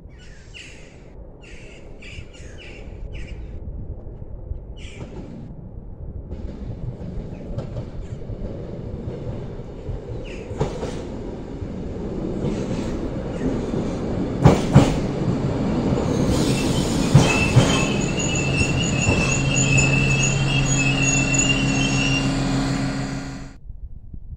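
A class 628/928 diesel multiple unit pulls into the station: its running rumble builds as it nears, wheels click over rail joints, and a high squeal sounds as it slows, with the engine's steady drone beneath. Crows caw in the first few seconds.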